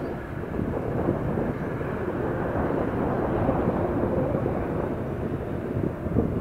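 Airbus A350-900's Rolls-Royce Trent XWB jet engines at takeoff power: a steady, crackling low rumble with a faint steady hum.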